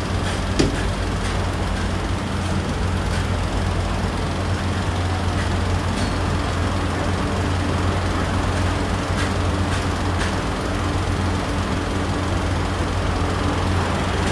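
Steady low mechanical hum with a constant pitch, under a broad hiss, with a few faint light clicks.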